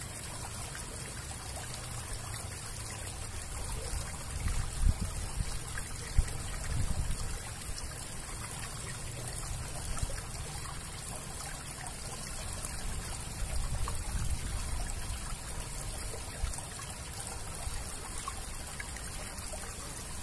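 Water running steadily through a concrete drainage outflow, a continuous trickling rush. A few low rumbles and a short thump stand out around five to seven seconds in.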